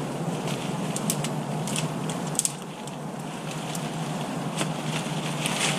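Steady rain and wind noise, with a handful of sharp cracks and knocks scattered through as sticks and the tarp are handled.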